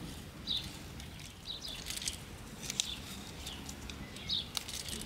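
Small birds chirping in short, high calls about once a second, over a low background hum, with a few light clicks.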